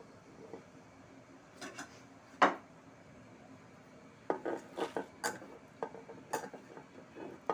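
Utensils knocking and clinking against a steel pressure-cooker pot as whole spices are tipped in. There is one loud knock about two and a half seconds in, then a quick run of lighter clinks over the last three seconds.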